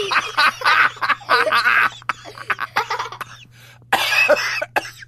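A woman coughing in several harsh bursts, with a few light handling clicks in between and another cough about four seconds in.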